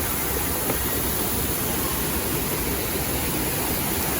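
Waterfall water gushing: a steady rush of falling water.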